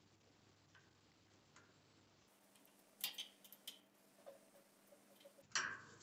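Small, sharp metallic clicks of a screwdriver working the screws of a deadbolt's bolt faceplate: a quick cluster of clicks about three seconds in, a few faint ticks after, and one sharper click near the end.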